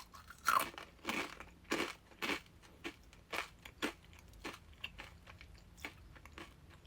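Crunchy rolled tortilla chip (Doritos Dinamita) being bitten and chewed close to the microphone: crisp crunches about every half second, growing fainter toward the end as the chip is broken down.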